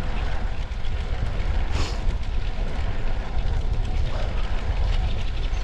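Wind rushing over the microphone of a camera carried on a moving bicycle, a steady low rumble with road and tyre noise, with a brief louder hiss about two seconds in.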